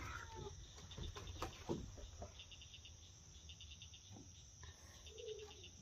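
Crickets chirping faintly in short, rapid pulse trains that repeat through the second half, with a few faint taps in the first couple of seconds.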